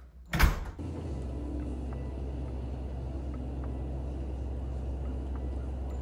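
A loud thump about half a second in, then the steady low rumble of a car's interior with the engine running.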